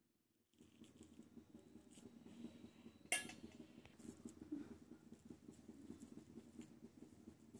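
Faint soft patter and rubbing of fingers pressing and folding dough around a potato filling close to the microphone, with one sharp click about three seconds in.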